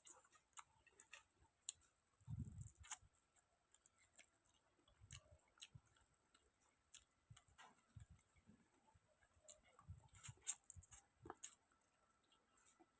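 Faint close-up chewing: scattered soft mouth clicks and smacks at an uneven pace, with a soft low bump about two and a half seconds in.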